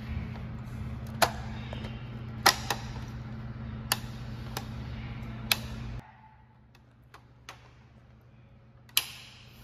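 Sharp clicks and snaps of air-vent parts being pressed into place, in a handful of separate strokes. Under them runs a steady low hum that cuts off suddenly about six seconds in.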